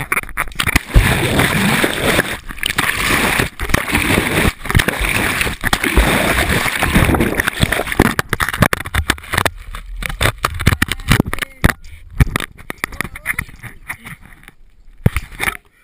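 Water splashing and churning right against an action camera's microphone as a swimmer plunges into a river and scrambles back out, with many hard knocks and bumps of the camera being handled. The noise cuts off sharply near the end.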